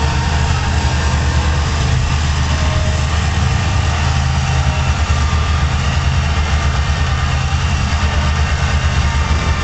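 Large farm tractor's diesel engine running steadily at low revs, a heavy, even drone with a fast pulse.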